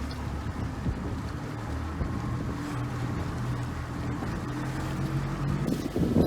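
Fishing boat's motor running under way, a steady engine hum, with wind rushing over the microphone.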